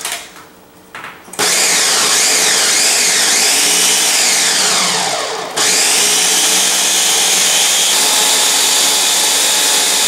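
Ninja Mega Kitchen System 1500-watt blender motor switching on about a second and a half in and running at speed, chopping ice, frozen cucumber and vegetables with a little water, its pitch wavering and falling as the load shifts. About five and a half seconds in it dips briefly, then runs steadily again.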